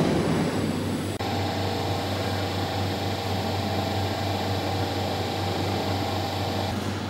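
Automatic pipe welding machine running with a steady hum and hiss, which changes abruptly about a second in and holds steady after that.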